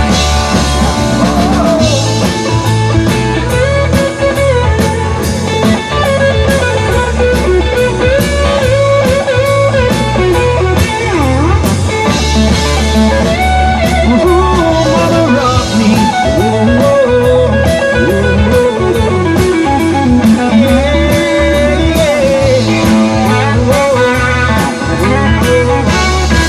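Live rock band playing an instrumental break: a lead guitar plays a bending melody over bass and a steady drum beat.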